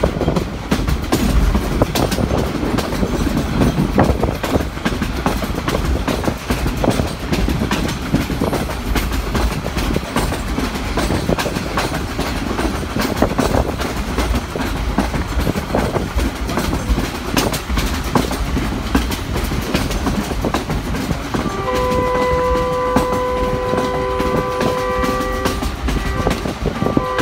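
A passenger train running, heard from inside a carriage: a steady rumble with the clickety-clack of wheels over rail joints. About 21 seconds in, the locomotive's horn sounds a long blast of several notes together, breaks off for a moment, and sounds again at the end.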